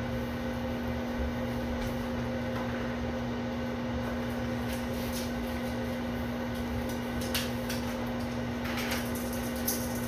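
Microwave oven running with a steady electrical hum and fan noise. A few faint ticks come in the last few seconds.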